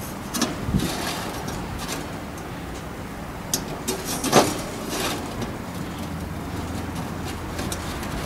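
Thin metal rods being slid and fitted through the holes of a stainless steel windscreen ring, giving a few light metal clicks and scrapes, the loudest about four and a half seconds in.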